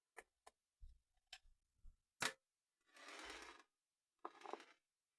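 Faint clicks and taps of a screwdriver working at a light switch's faceplate screws, about six in quick succession with the loudest a little past two seconds in, followed by two short scraping rasps.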